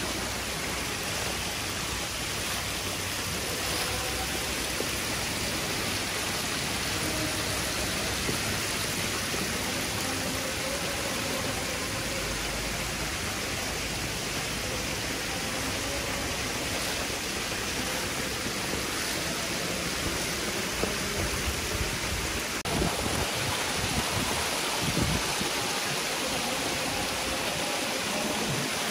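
A dense mass of hybrid magur catfish churning and splashing in a shallow concrete tank as they feed, a steady watery hiss, with a few low bumps a few seconds before the end.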